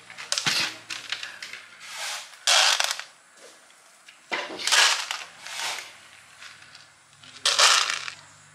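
Dry cat kibble poured into plastic food bowls, rattling in several short bursts of about half a second each.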